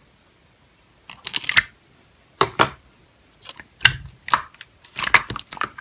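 Slime being played with by hand: a series of short, sticky crackling squishes, starting about a second in and coming irregularly every half second or so.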